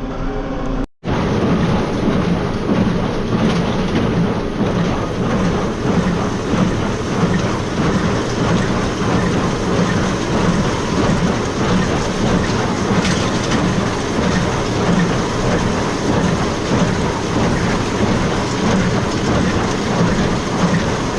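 Tractor and small square baler running while baling straw: a loud, steady mechanical rumble with a pulsing low beat.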